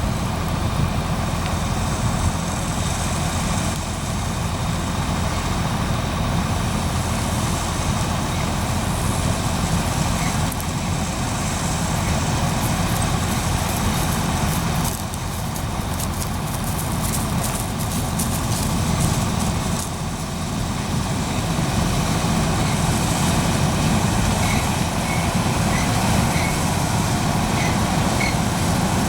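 John Deere 9400 combine running steadily, a continuous low diesel engine and machinery drone. From about 11 to 19 seconds in, a spell of fine crackling ticks rides on top.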